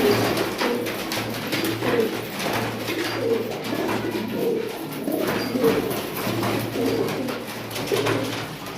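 Domestic pigeons cooing, several birds calling in short repeated coos that overlap, about one to two a second, over a steady low hum.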